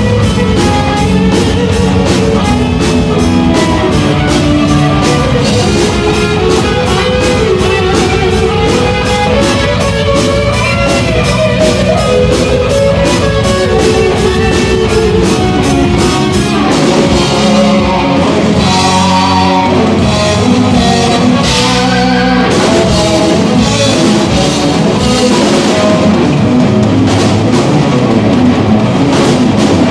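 Live heavy metal band playing a fast instrumental: distorted electric guitars, bass guitar and a drum kit keeping a rapid, even beat. About seventeen seconds in, the steady cymbal strokes drop out for a few seconds before the full beat comes back.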